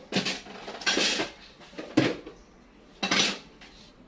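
A carrot being peeled by scraping its skin by hand without a peeler, with four short scraping strokes about a second apart.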